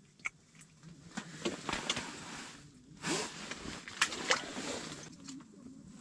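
Handling noises from an angler moving by the ice hole: clothing rustling and small knocks, in a few bursts about a second apart.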